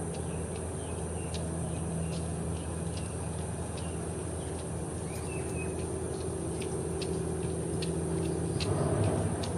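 Outdoor ambience: a steady low hum of distant traffic or machinery, with short high ticking chips about every half second and a faint brief chirp about halfway through.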